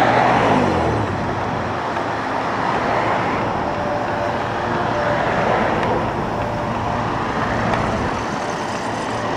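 Steady street traffic noise as cars and other vehicles pass, with one engine note falling in pitch during the first second.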